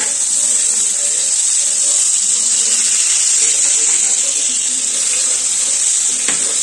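Pieces of climbing perch and catfish frying in hot oil in an iron kadai: a steady, loud sizzle. A spatula clicks against the pan once near the end as the fish are turned.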